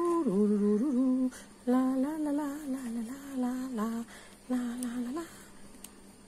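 A woman humming a wordless tune in a few held, gliding phrases, stopping about five seconds in.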